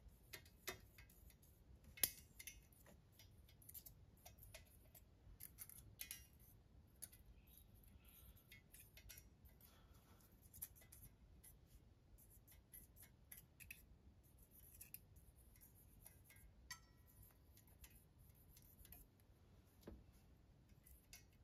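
Faint, scattered small metallic clicks and ticks of a thin feeler gauge blade being slid and tapped against a steel straight edge laid across a bare engine block deck, over near silence; the sharpest click comes about two seconds in. The block deck is being checked for warp.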